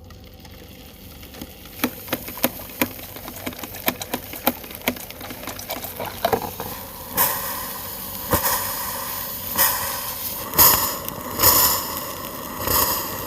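A 120-volt drip coffee maker running on 240 volts, at double its rated voltage: sharp ticks as its heating element heats up, then water boiling through in gurgling bursts with hissing steam, growing louder and coming about once a second toward the end.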